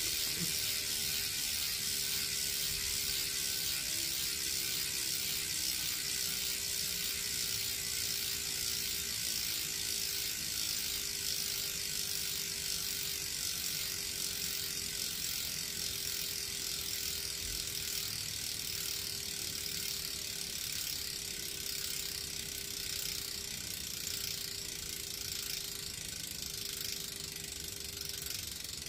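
DT Swiss 350 rear hub with a 36-tooth star ratchet freewheeling as the wheel spins: a fast, continuous buzz of ratchet clicks, a little bit quiet, fading slowly as the wheel coasts down.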